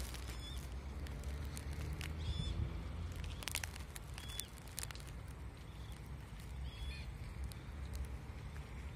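Outdoor park ambience: a low steady rumble with faint short bird chirps every second or two, and scattered light clicks.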